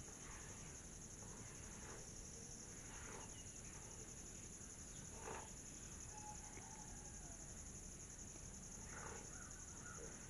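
Faint, steady high-pitched insect chirring, with a brief soft tap about five seconds in and a few faint short chirps near the end.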